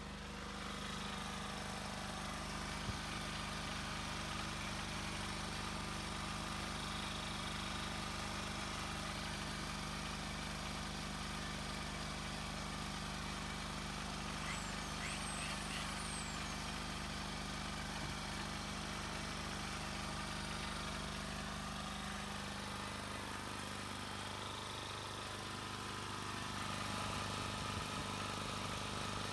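Small gasoline portable generator engine running steadily after repair, its faulty low-oil shutoff disconnected and fresh gas in the tank; the carburetor is still untuned.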